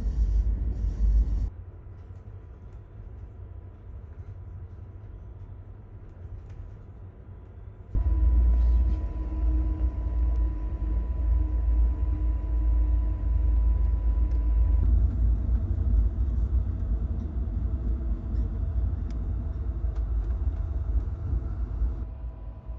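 Low, steady rumble of a moving passenger train, heard in a few short cuts that change in loudness. A faint steady whine runs through the middle part.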